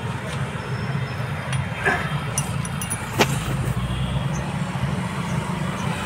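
A steady low machine hum, with a few light clicks and one sharper click a little past three seconds in.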